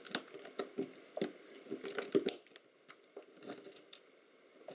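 A small metal pick digging and scraping at crumbly yellow potting compound on a circuit board: a quick run of crunchy scratches and clicks that thins out after about two seconds, with a few more scrapes later.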